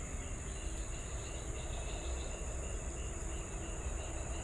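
Insects calling continuously: a steady high-pitched shrilling with a chirping call that pulses about three times a second, over a low rumble.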